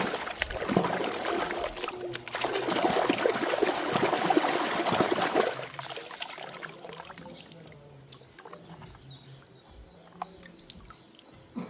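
Water pouring and trickling over toys being washed, stopping about halfway through and leaving only a few faint drips and ticks.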